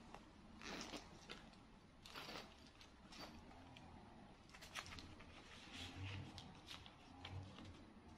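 Near silence in a small room, broken by a few faint rustles and clicks of things being handled.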